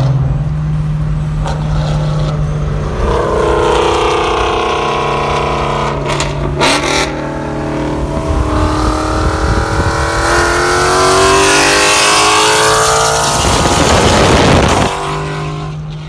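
A Ford Mustang GT's 5.0 V8 running through long-tube headers and a Corsa Extreme axle-back exhaust, heard from a car alongside while driving. It drones at a steady cruise, and its pitch climbs as it accelerates a few seconds in and again past the middle.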